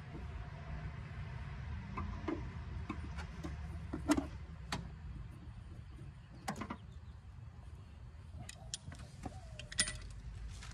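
Scattered light clicks and knocks of hand work at a car's open engine bay, with the sharpest about four seconds in, over a steady low background rumble.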